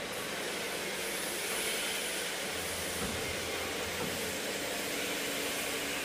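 CNC tube bending machine running: a steady hiss with a faint hum and some low rumble around the middle.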